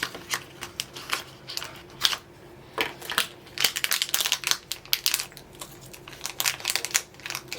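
Mystery pin box and its wrapping being opened by hand: irregular crinkling and rustling of packaging with quick sharp clicks, busiest about four seconds in.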